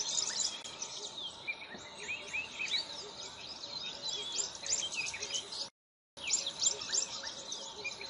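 Many small birds chirping and calling at once, a dense chorus of quick, high chirps over a light outdoor hiss. The sound cuts out completely for a moment about six seconds in, then the chorus resumes.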